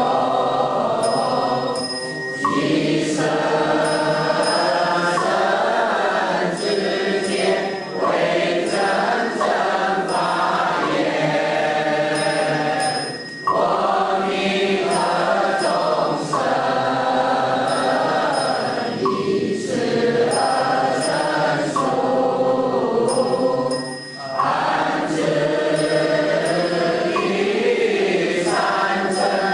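A group of voices singing a slow Buddhist chant in long phrases, with brief pauses between them.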